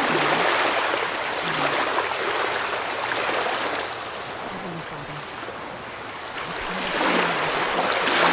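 Ocean surf washing in waves: a surge of rushing water that eases about halfway through and builds again near the end.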